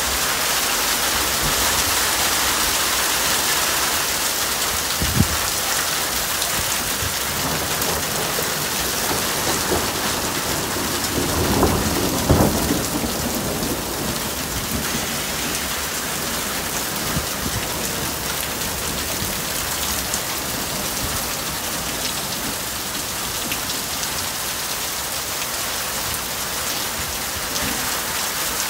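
Heavy rain mixed with small hail falling steadily. There is one sharp crack about five seconds in, and a short burst of thunder near the middle.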